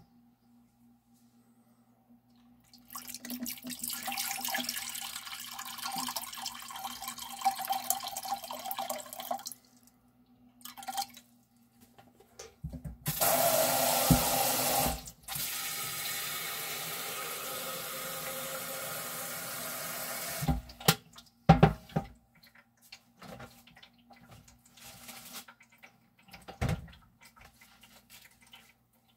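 Water running from a tap in two long spells, the second louder at first and then steady, followed by a couple of sharp knocks; a faint low hum lies underneath.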